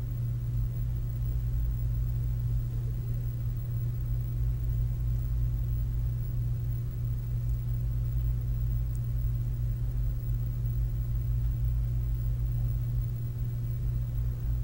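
Steady low electrical hum with light hiss, even in level throughout.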